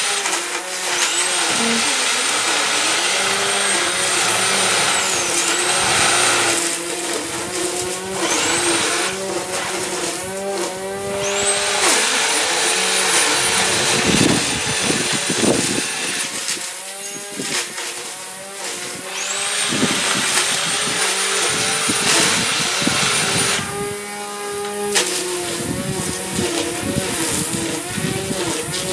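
Corded electric garden trimmer running in spells, its high motor whine rising each time it is switched on and dropping away when it is let off, several times over.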